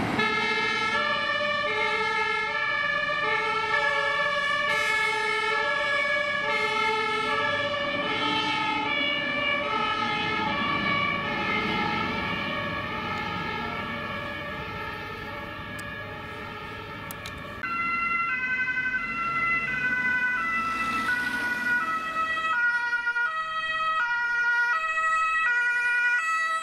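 German two-tone emergency sirens (Martinshorn) on the fire engines, alternating between two pitches and fading as the trucks drive off. About two-thirds of the way in, after a cut, a louder two-tone siren from an approaching police patrol car takes over and grows louder near the end.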